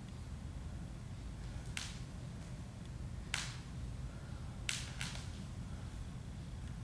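Bare feet slapping on a polished hardwood floor: four short sharp slaps, the last two close together, over a low steady room rumble.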